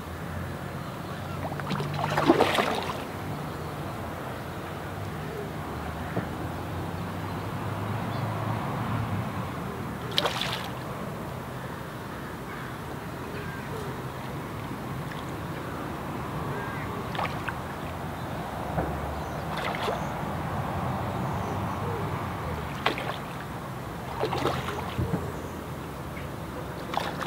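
A hooked tench splashing and swirling at the surface while it is played on a feeder rod: a few short, sharp splashes, the loudest about two seconds in, over a steady low rumble of wind and water.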